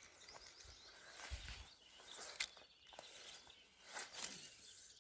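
Quiet streamside sounds: faint footsteps and handling clicks on the bank, soft thumps about a second and a half in, and a brief hissing swish about four seconds in.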